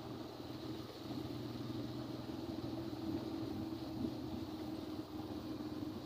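A motor vehicle travelling steadily along a road, heard from on board: a low, even hum with a constant tone.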